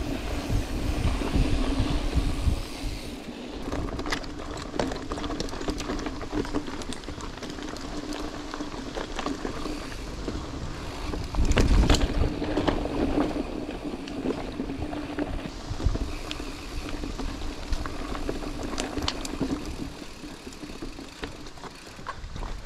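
Mountain bike rolling fast over dirt singletrack: a steady hum from the tyres with clicks and rattles from the bike, wind on the microphone at first, and a loud knock about halfway through, as from a bump. It gets quieter near the end as the bike slows.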